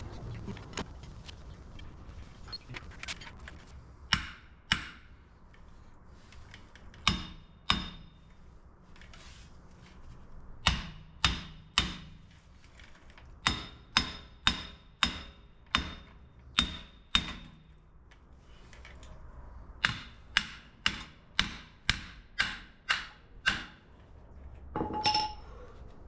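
Hammer blows on metal, in runs of sharp ringing strikes about two a second with pauses between, knocking at a vehicle's front wheel hub bearing assembly.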